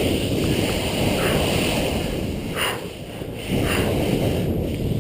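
Snowboard sliding through heavy snow: a steady rushing noise, mixed with wind on the camera microphone, that eases off briefly about three seconds in.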